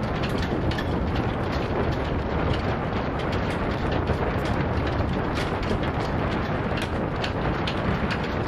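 Strong wind buffeting the microphone in a steady heavy rumble, with quick cracks from flags flapping hard in the gusts.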